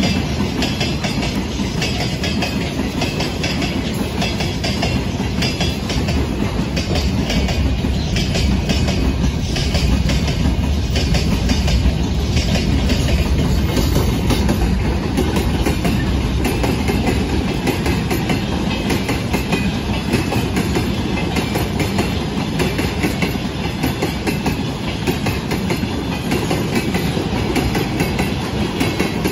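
Freight train of gondola wagons and tank cars rolling past close by: a steady rumble of wheels on rail with a fast clickety-clack over the joints, deepest and heaviest in the middle stretch.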